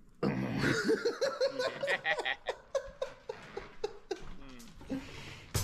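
A man laughing: a quick run of short bursts of laughter that starts suddenly and fades out about four seconds in.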